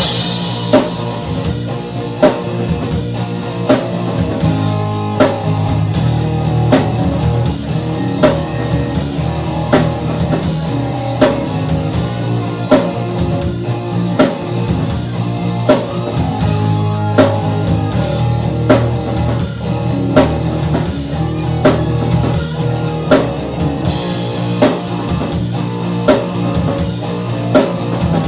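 Rock music with electric guitar, bass and a drum kit keeping a steady beat.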